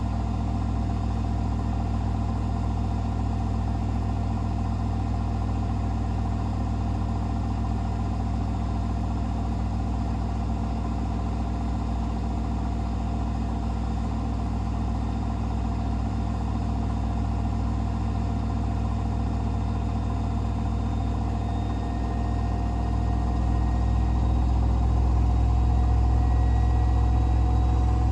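Hoover H-WASH 500 washing machine spinning its drum: a steady deep hum with a motor whine on top. About two-thirds of the way through, the whine rises slowly in pitch and the hum grows louder as the spin speed climbs.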